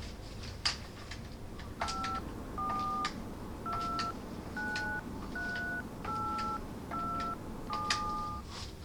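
Touch-tone phone keypad dialing a number: eight key beeps, each a short two-tone chord, about one a second. A few sharp clicks come before the first beep.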